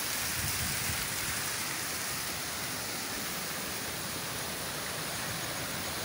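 Steady rush of water from a waterfall tumbling over rocks, an even hiss with no change.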